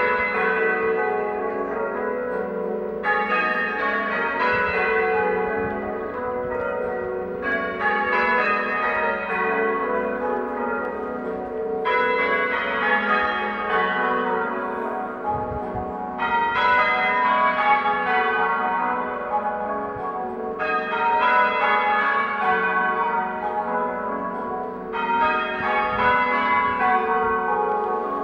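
Church bells change ringing half-muffled, with a leather muffle on one side of each clapper. Clear rows and dull, muffled rows alternate, the clear rows sounding out about every four and a half seconds to give the mournful echo effect of remembrance ringing.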